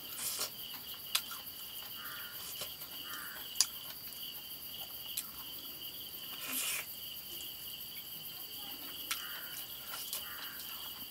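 Steady high chirring of crickets, with eating sounds from mutton being chewed off the bone by hand: mouth sounds and a few sharp clicks, the loudest about a second in and again past three and a half seconds.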